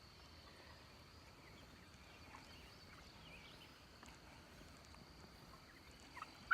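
Faint outdoor ambience of young meat chickens giving occasional soft chirps over a steady high insect drone, with one sharper chirp near the end.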